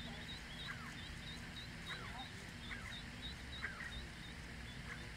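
Mallard ducklings peeping: a fast series of short, high chirps with a few louder falling calls mixed in.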